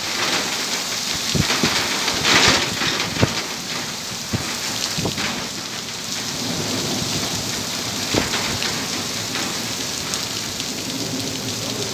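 Heavy rain pouring steadily, with scattered sharp hits of single drops striking close by.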